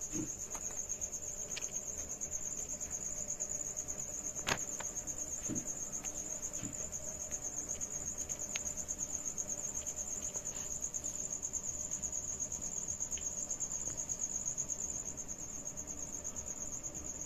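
Cricket trilling steadily, high-pitched and unbroken, with a few light clicks as momos are set down on a perforated steel steamer plate; the sharpest click comes about four and a half seconds in.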